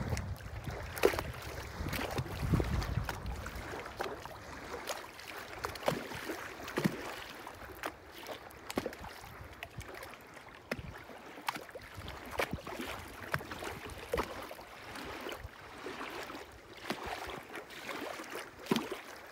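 Small wind-driven waves on a lake lapping, with irregular little slaps and splashes of water. Wind buffets the microphone for the first few seconds.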